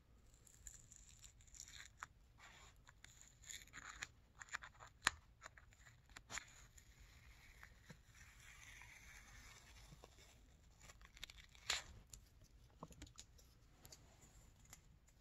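Blue masking tape being peeled off the metal ID plate of a powder-coated engine case: faint, intermittent crackling and tearing, with two sharper clicks, about five seconds in and near twelve seconds.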